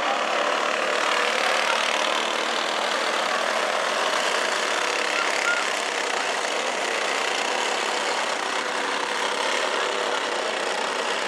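A pack of racing go-karts with clone single-cylinder four-stroke engines running at speed around a dirt oval. The engines blend into one steady drone.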